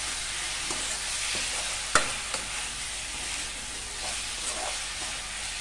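Raw chicken pieces frying in oil with onions, green chillies and masala in a kadai, sizzling steadily while a spatula stirs and tosses them, with small scrapes and taps of the spatula on the pan and one sharp knock about two seconds in. The chicken is being seared until it turns white and changes colour.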